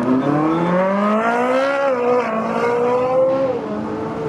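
A performance car's engine accelerating hard: its pitch climbs steadily for about two seconds, holds, and then falls away near the end.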